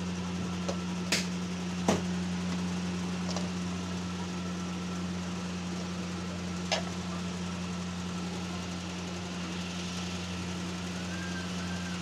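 Steady low machine hum, with a few sharp clicks in the first seven seconds as lids are lifted off and set down on plastic serving bowls.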